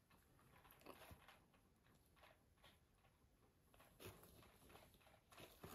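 Near silence with a few faint, scattered crunching clicks: an African crested porcupine gnawing a piece of raw pumpkin.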